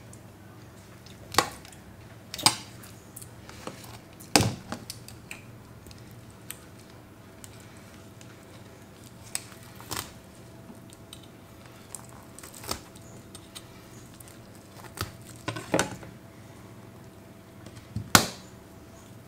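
Metal tongs and a long kitchen knife clicking and knocking against a plastic chopping board as a roast pork joint with crackling is handled and cut: a string of separate sharp clicks every second or two, the loudest about two and a half seconds in and near the end.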